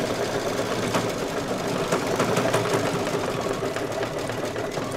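Brother Luminaire single-needle embroidery machine stitching a fill area at a steady speed, its needle ticking rapidly and evenly.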